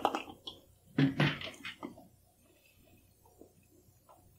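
Plastic mustard squeeze bottle being worked open with the teeth: a few clicks, then a short louder squelch about a second in, followed by faint small handling sounds.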